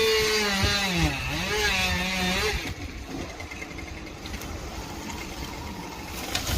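Two-stroke chainsaw engine running at high revs, its pitch dipping and rising, then dropping away about two and a half seconds in to a quieter, even noise.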